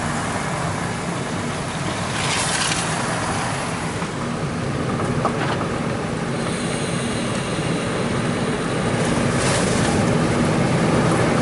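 Steady road and engine noise inside a car on the move, with a low hum. A brief rush of higher noise comes about two seconds in and again near the end.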